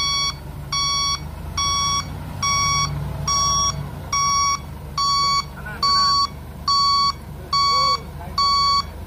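Rough-terrain crane's travel/reversing warning alarm beeping steadily, about one short beep a second, over the low rumble of its diesel engine as it moves.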